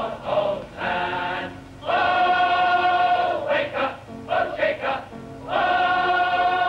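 A group of voices singing together in chorus, with a long held note about two seconds in and another near the end, between shorter broken phrases.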